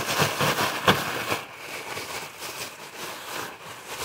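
A plastic grocery bag of chocolate-coated Chex cereal and powdered sugar being shaken by hand: crinkling plastic with the cereal pieces rattling inside. It is loudest in the first second or so, then goes on more quietly.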